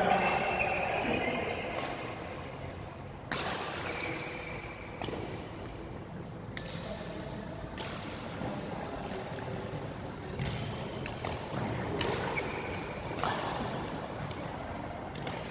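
A badminton rally: sharp racket strikes on the shuttlecock every second or two, echoing in a large hall, with short high squeaks of court shoes on the floor between hits.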